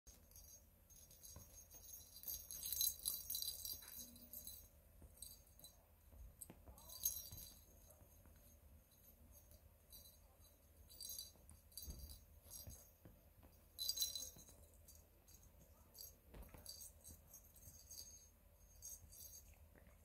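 A bell inside a small plastic lattice ball toy jingling in short irregular bursts as a cockatiel chick pushes and rolls it with its beak. The loudest jingles are a few seconds in and again near the middle.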